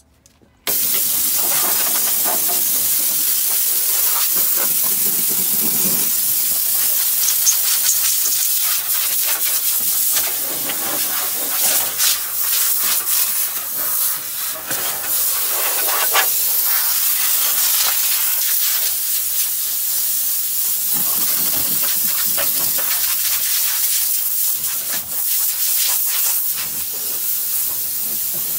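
Compressed-air blow gun on an air hose hissing loudly as it blows out a car trunk. It starts abruptly about a second in and runs on with small swells and dips as the nozzle moves.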